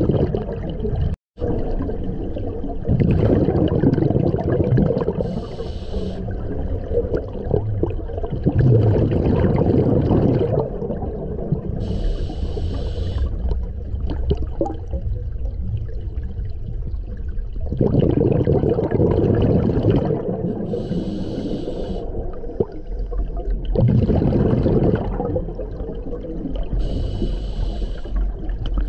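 Scuba diver's regulator breathing underwater: hissing inhalations through the demand valve alternate with bubbling exhalations, a breath every few seconds.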